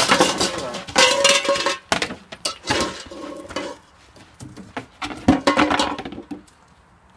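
Metal cooking pots, a lid and a skillet clattering and clanking together, with brief ringing, as they are grabbed up on a tabletop and carried off in a hurry. A second, shorter bout of clatter comes about five seconds in.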